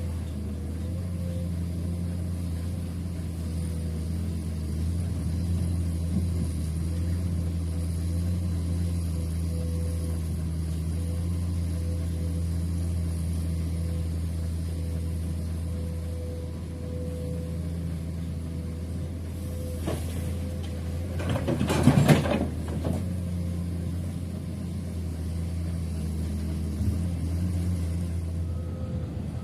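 Heavy diesel engine of a dump truck or excavator running steadily at a low idle-like pitch. About three quarters of the way through, a short loud burst of noise rises over it.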